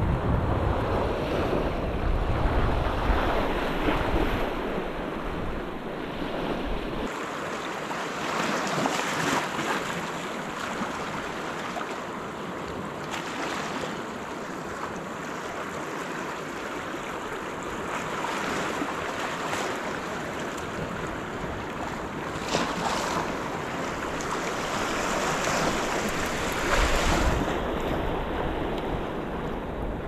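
Small waves washing against a rocky shoreline, with wind buffeting the microphone, heaviest in the first several seconds and again near the end.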